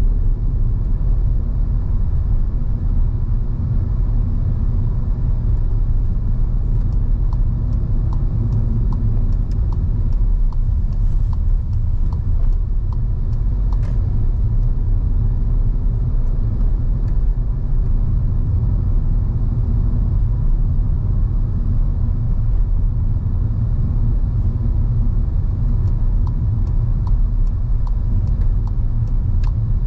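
Steady low rumble of a car on the move, engine and road noise as picked up by a dash cam inside the car, with faint ticks here and there.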